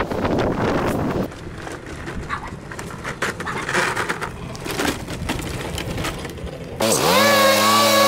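Irregular knocking, clicking and rustling from handling debris, then about seven seconds in a small engine cuts in abruptly, dips briefly in pitch and runs steadily.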